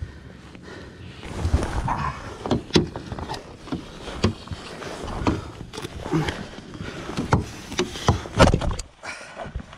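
Irregular knocks, thuds and rustling as a landed Murray cod is handled in a landing net on the floor of a boat, over a measuring mat.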